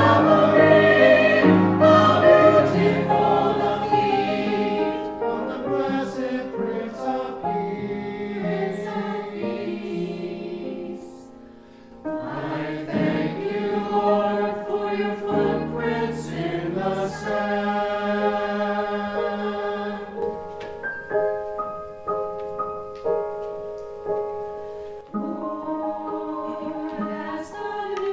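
Choir singing a slow sacred piece in held notes, with a short break about eleven seconds in before the singing resumes.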